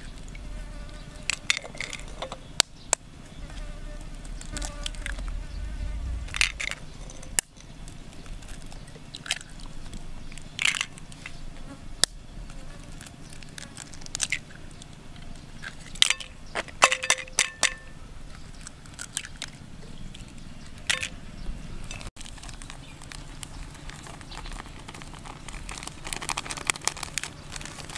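Eggs cracked one after another on the rim of a plastic bowl and broken open into flour batter: a series of sharp, irregular shell cracks and taps. A low steady buzz runs underneath, and near the end powder is shaken in from a paper packet.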